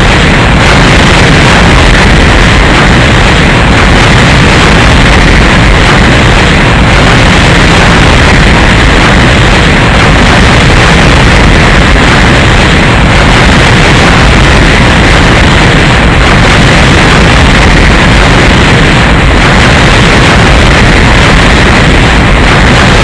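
Cartoon explosion sound effect played as a loop: one continuous, very loud, distorted blast noise with no separate bangs, its loop restarting roughly every three seconds.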